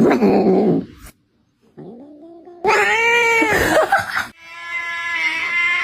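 Cat meowing loudly in several separate calls, the longest a drawn-out yowl that rises and falls in pitch about three seconds in.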